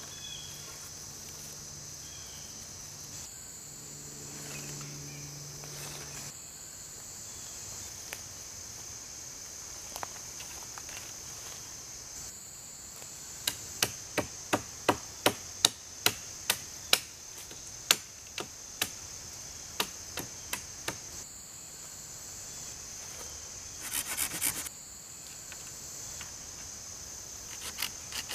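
Insects droning steadily in the woods. About halfway in, a run of about a dozen sharp wooden knocks and cracks, roughly two a second, as poles and branches are worked by hand, then a few scattered knocks and a short rattle of them near the end.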